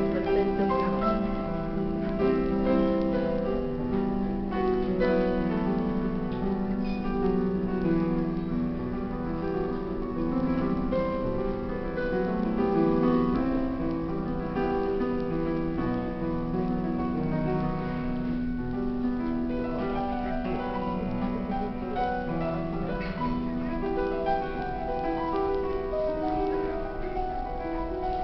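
Instrumental music with piano, held notes and chords playing continuously.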